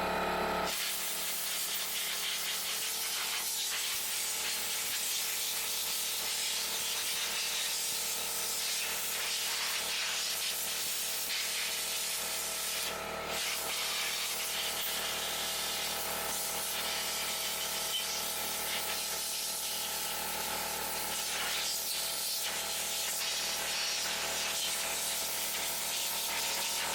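Compressed-air blow gun blowing sawdust out of the inside of a chainsaw: a steady hiss with a few faint steady tones underneath, starting just under a second in, with a brief break about halfway through.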